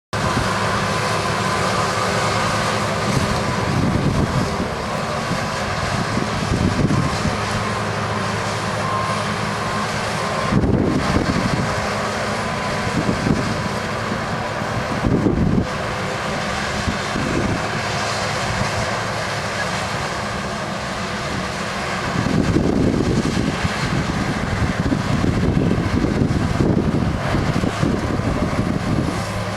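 Farm machinery engine running steadily through a wheat harvest, with louder rushing surges coming and going several times.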